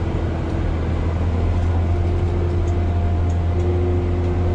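Motor grader's diesel engine running steadily while the machine grades a dirt road, heard from inside the cab: an even low drone with faint whining tones above it.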